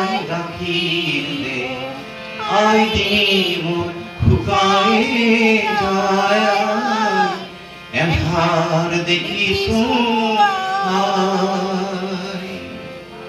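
A man singing a song in long phrases to a harmonium's steady accompaniment, with short pauses for breath between phrases.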